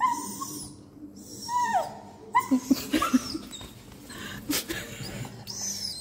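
A dog whining in high calls that fall in pitch, with a burst of short, sharper yips around the middle: excited by a snake behind terrarium glass.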